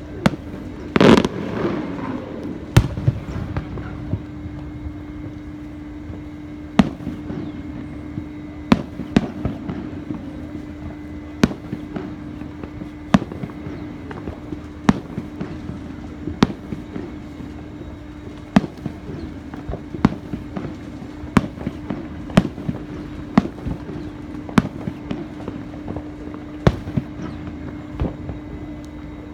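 Aerial fireworks exploding: one big burst that rings on briefly about a second in, then a string of sharp bangs going off every one to two seconds, over a steady low hum.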